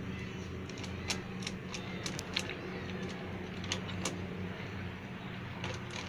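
Scattered light metal clicks and clinks of an 8 mm T-handle wrench turning and seating bolts on a motorcycle engine side cover, over a steady low background hum.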